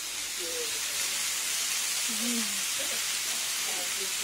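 Kefta and sliced tomatoes sizzling on a hot flat griddle, a steady frying hiss that grows slightly louder about a second in.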